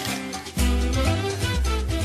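Upbeat instrumental music; a heavy bass line comes in about half a second in and the music gets louder.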